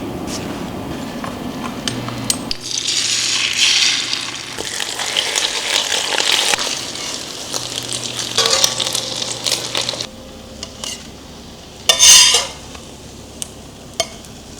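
Food sizzling as it fries in a pan, with a utensil clinking and scraping against the pan. The sizzling stops about ten seconds in, leaving a few light clinks and one short, loud rush of noise near the end.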